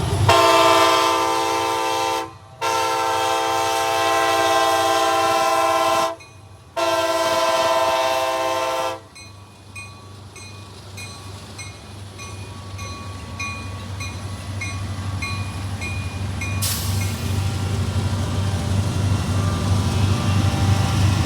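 Diesel locomotive air horn, a multi-chime with several tones sounding together, gives three blasts: a short one, a longer one and another short one. A regular ringing tick about twice a second follows, while a low rumble of the train grows louder toward the end.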